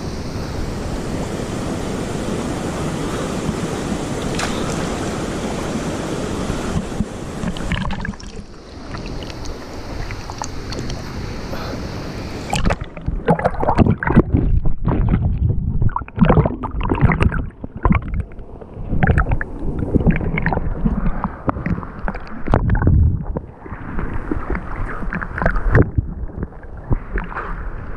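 River water splashing and sloshing around a hand-held camera as a swimmer moves through a pool. The first half is a steady rush of moving water; about halfway through it turns muffled and comes in irregular splashes and gurgles as the camera dips into the water at the surface.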